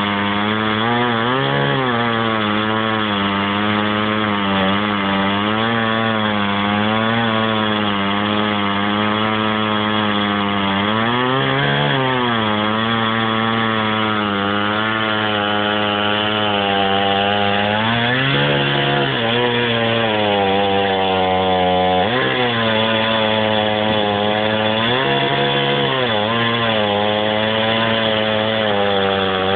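Two-stroke chainsaw on a chainsaw mill running at high, steady revs while cutting wood. Its engine note sags briefly in pitch several times as the chain takes more load, then climbs back.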